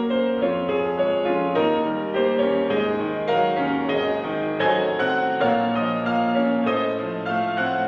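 Background music: a gentle piano piece with notes changing at an even pace.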